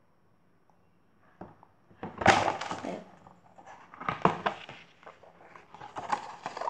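A picture-book page being turned close to the microphone: paper rustling with handling bumps, in three bouts starting about two, four and six seconds in, the first the loudest.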